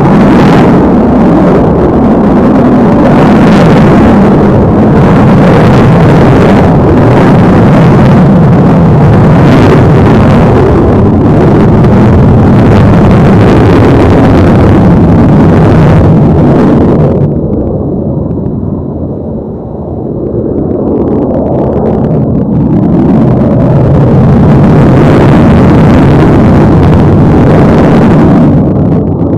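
Twin Pratt & Whitney F119 turbofan engines of an F-22 Raptor in flight overhead: loud, continuous jet noise that fades and goes duller for a few seconds past the middle, then swells back to full strength.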